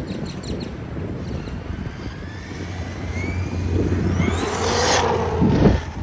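Electric motor of a Traxxas Sledge RC monster truck whining through short throttle bursts. Near the end it gives a longer, louder burst in which the whine rises steeply in pitch, then cuts off sharply.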